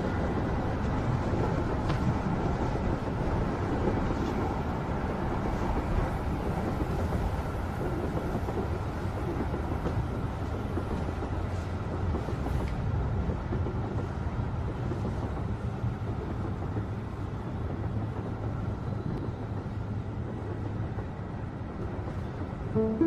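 Subway train running, a steady low rumble heard from inside the carriage.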